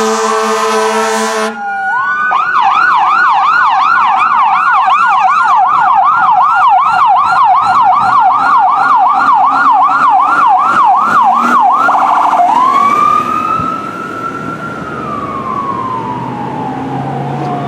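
Fire apparatus air horn blasting for the first second and a half, then an electronic siren on a fast yelp, about three sweeps a second, for about ten seconds. It switches briefly to a faster warble and then to a slow wail that rises and falls once.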